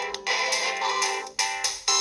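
Panasonic G60 mobile phone playing one of its preloaded ringtones: a melody of struck notes that each die away, over a held low note.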